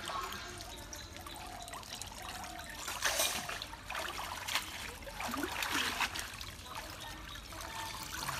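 Water trickling and splashing as a cast net is hauled up out of shallow pond water, water running off the mesh. The splashing surges about three seconds in and again around five to six seconds.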